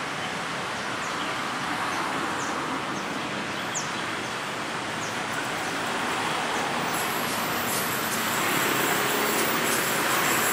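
Diesel-electric locomotive hauling passenger coaches, approaching: the engine and the wheels on the rails grow gradually louder. Birds chirp faintly in the first half.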